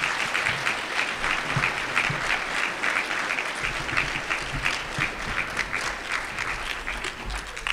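An audience applauding steadily, a dense patter of many hands clapping that thins out near the end.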